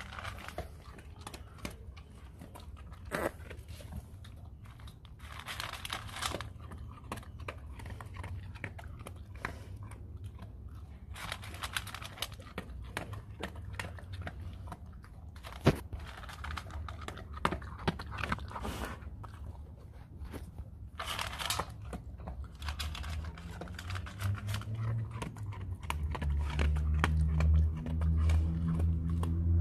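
A dog eating dry kibble from a metal bowl: irregular crunching bites and chewing. A low steady hum swells over the last few seconds.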